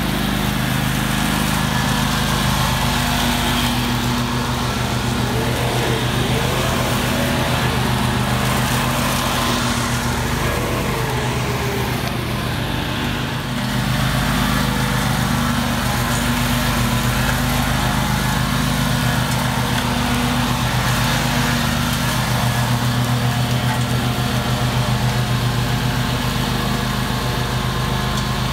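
Exmark stand-on mower's engine running steadily with its blades turning as it mulches dry leaves on pavement. The loudness dips briefly about halfway through.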